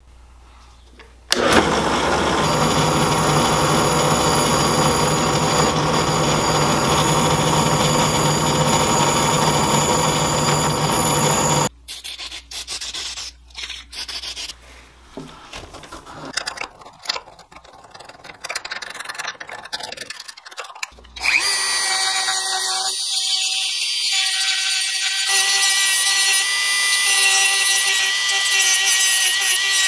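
A drill press is switched on about a second in and runs steadily for about ten seconds, then stops. Short hisses from an aerosol spray can of paint stripper follow, and from about 21 seconds a handheld rotary tool fitted with a cut-off wheel runs with a steady high whine.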